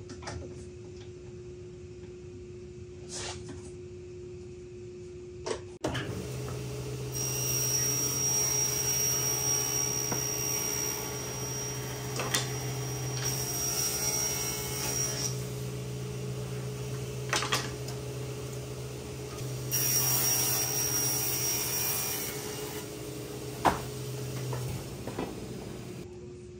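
Cabinet table saw started up and running, cutting a wood panel in two spells of sawing with a high-pitched whine of the blade in the wood, a sharp knock near the end, then the motor switched off.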